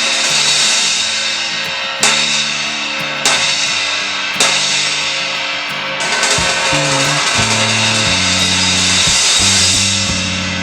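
Music with a drum kit: a loud, washy crash cymbal struck again every second or so over a moving bass line.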